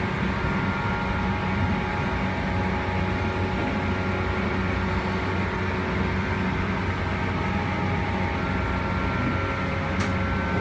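Cabin of a JR West 117 series electric train's motor car while running: steady traction-motor whine over rolling noise and a low hum, with one sharp click near the end.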